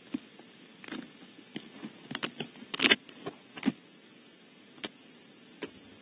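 Barn owl moving across its nest cavity close to the microphone: irregular scratches, scuffs and knocks from its feet on the cavity floor, clustered and loudest a little under halfway through, with two single ticks near the end.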